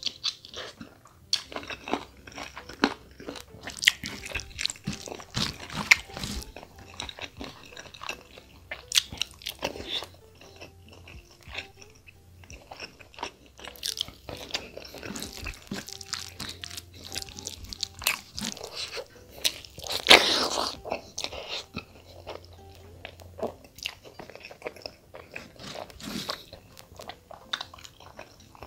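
Close-miked eating: chewing and biting cooked chicken gizzards and liver with rice, a steady run of short wet mouth clicks and smacks, loudest about twenty seconds in.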